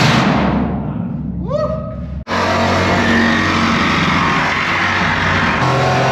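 Angle grinder cutting a steel tie-down hook off a shipping container. A grinding noise eases off over the first two seconds while the motor's whine rises about a second and a half in; just after two seconds a loud, steady cutting noise starts and holds.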